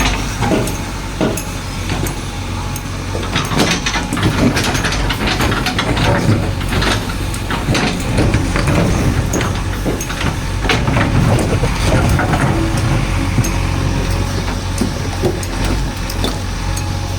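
Heavy diesel engine of a backhoe loader running steadily under load, with repeated knocks, clanks and scraping as the bucket works soil.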